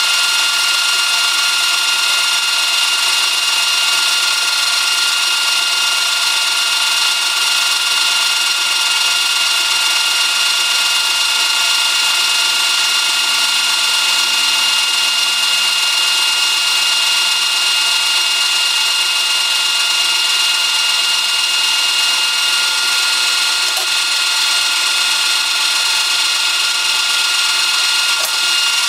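Metal lathe running at a steady speed while a tool takes a facing cut across the end of a round metal bar. It makes a steady whine over an even hiss.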